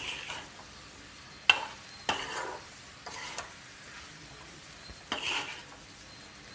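Metal perforated spatula stirring and scraping spiced potato cubes around a nonstick kadai in hot oil: a handful of separate scraping strokes, one a sharp tap on the pan about a second and a half in, over a faint sizzle of frying.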